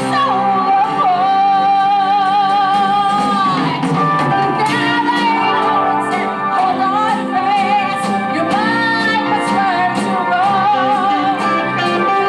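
A woman singing a rock number with a live stage band behind her, holding long notes with a wavering vibrato over a steady beat.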